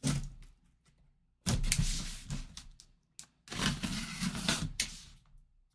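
Packing tape along the seam of a cardboard box being slit and pulled open by hand. There is a short scrape, then two longer scraping strokes of about a second and a half each.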